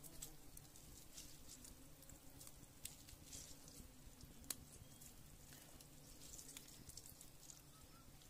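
Near silence at a wood cooking fire under a pot, with a few faint scattered ticks and crackles.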